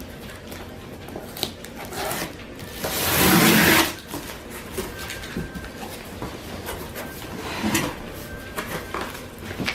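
Meal-kit delivery box being unpacked by hand: cardboard and packaging rustling, sliding and knocking, with one loud rough rush lasting about a second about three seconds in.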